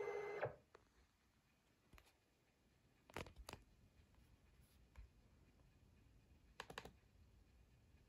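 Music stops about half a second in, leaving near silence broken by a few faint clicks: a couple about three seconds in and a quick run of three near seven seconds.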